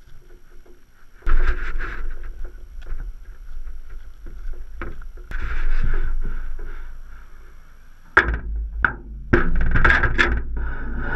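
Wind rumbling on the microphone of a GoPro inside a wire-mesh crawdad trap as the trap is swung and lowered on its rope, with scattered knocks and rattles of the trap frame. It starts about a second in, eases off briefly, and comes back loud near the end.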